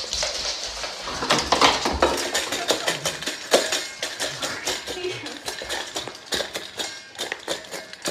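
Dog eating dry kibble from a stainless-steel bowl: quick, irregular clinks and clicks of food and teeth against the metal.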